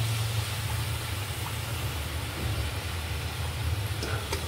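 Potato pieces sizzling in hot oil over a steady low hum, with a couple of sharp clicks near the end as the wire spider strainer knocks against the steel pan.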